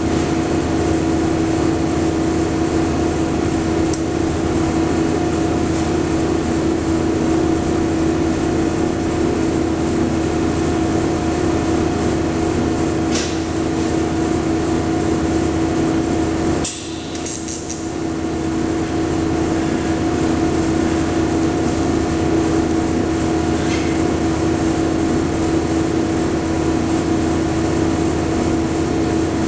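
Steady electrical hum of TIG welding equipment running during silicon bronze TIG welding. The level dips for about a second some seventeen seconds in, with a short high-pitched crackle.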